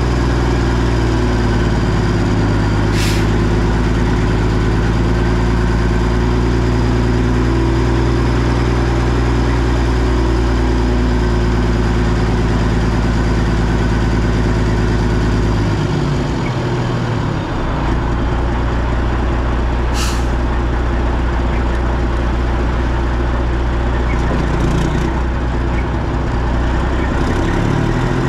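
Heavy truck's diesel engine running steadily, its tone shifting and dipping briefly a little past halfway. Two short hisses of air, one about three seconds in and one about two-thirds of the way through.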